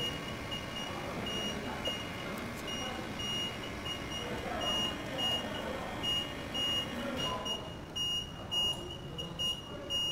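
A high electronic beep repeating at an even, fast rate over a steady background noise that drops away about seven seconds in.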